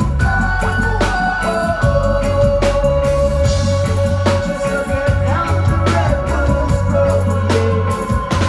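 Live band playing an instrumental stretch without vocals: drum kit and bass under a long held note on an organ-sounding keyboard.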